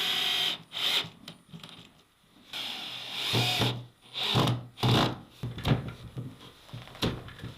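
Woodworking on boards: two short runs of a power tool on wood, then a string of knocks and rubbing as the boards are handled.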